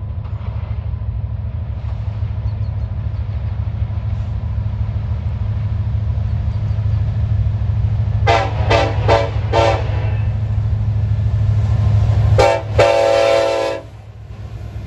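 Air horn of a CN EMD SD70M-2 diesel locomotive sounding four short blasts a little past halfway, then one more short blast and a longer one about a second long. A steady low diesel rumble runs under it and drops away just after the last blast.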